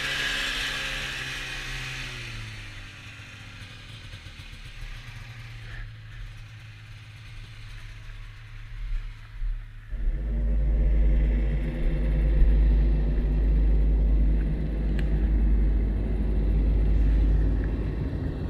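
Two-stroke snowmobile engine of a 1992 Polaris Indy Lite 340 dropping back to a low, quiet idle, then opening up about ten seconds in and running loud and steady under throttle.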